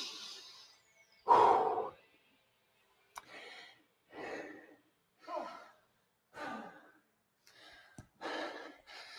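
Heavy breathing of a person catching their breath between exercise sets: a loud sighing exhale about a second and a half in, then quieter breaths about once a second.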